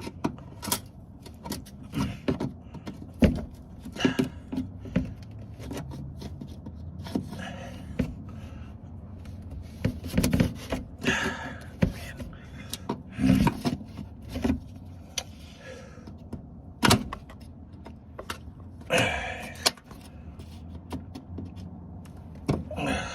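Hand tools and metal parts clinking and knocking irregularly during work on a car's front end, with a few short scraping or rattling stretches.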